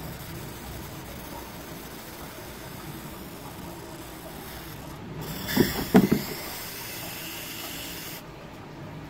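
WD-40 aerosol spraying in two long hissing blasts, the first for about five seconds and the second for about three, flushing the old grease out of a clipless pedal's body and bearings. A couple of knocks from the pedal or can being handled come near the start of the second blast.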